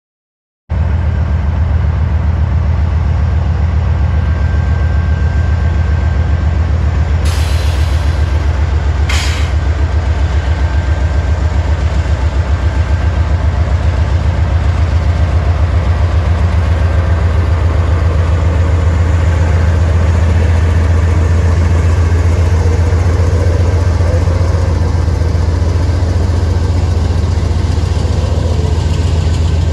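Norfolk Southern freight train running past: a loud, steady low rumble with a fast, even pulsing, starting abruptly about a second in. Two short hisses come about 7 and 9 seconds in.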